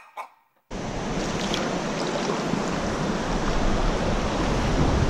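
Steady rush of a river running over a shallow rocky riffle, with some low wind noise on the microphone. It starts after a moment of silence.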